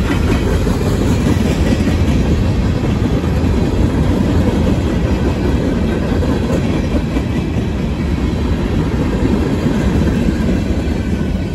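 Empty open-top rock cars of a freight train rolling past, steel wheels on rail making a loud, steady clickety-clack. The noise eases slightly near the end as the last car goes by.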